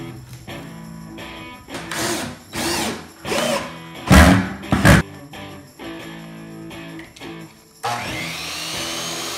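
DeWalt cordless drill driving screws into a wooden board in a series of short bursts. A miter saw starts suddenly near the end and runs through a cut in the wood. Guitar music plays underneath.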